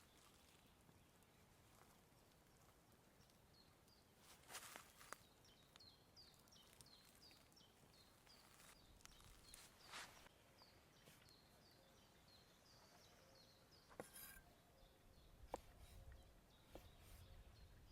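Faint outdoor ambience with a small bird repeating short high chirps, a few a second, over several seconds. A handful of soft clicks and knocks of hand food preparation come through now and then, the loudest about four and a half, ten and fourteen seconds in.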